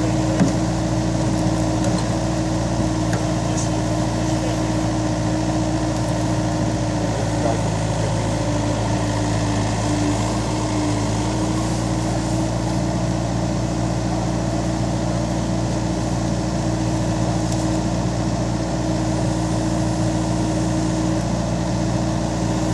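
Mini excavator's engine running steadily with a constant hum while the bucket digs into soil, with a short knock about half a second in.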